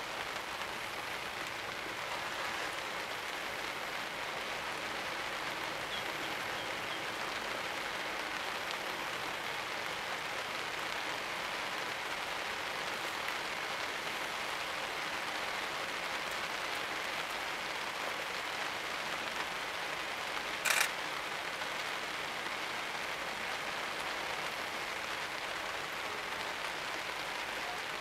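Steady rain falling, an even hiss with no let-up. One brief sharp click stands out about twenty seconds in.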